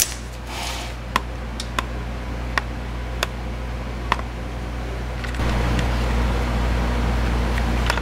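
Steady low electrical-type hum with a few sharp, light clicks, about five spread over the first four seconds, as parts are handled during brake work. About five seconds in, the hum steps up louder.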